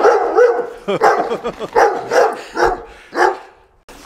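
Dog barking, a quick run of short barks, about two or three a second, that stops about three seconds in.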